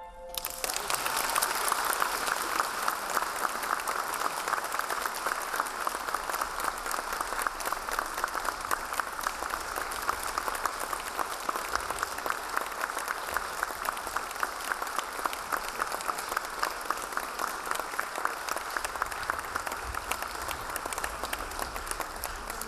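Theatre audience applauding: many hands clapping at once in a dense, steady ovation that starts as the music ends.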